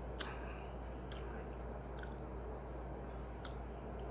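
A person chewing seafood boil food, with a few soft, scattered wet clicks over a steady low hum.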